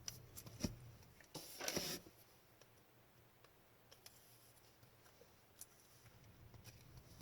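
Trading cards being handled: a single click, then a short slide of card against card about a second and a half in, followed by a few faint clicks.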